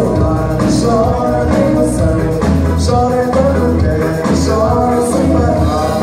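Live band playing a song, with a woman singing lead over electric guitar, bass and drums, amplified through stage speakers. Cymbal or hi-hat hits splash in every second or so over a steady bass line.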